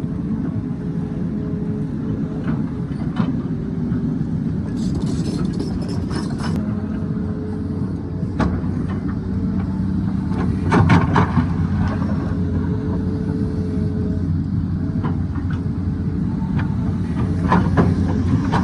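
Hydraulic excavator's diesel engine running steadily under load, with irregular knocks and clatters of the bucket striking and scraping rock; the loudest clatter comes about halfway through, with another near the end.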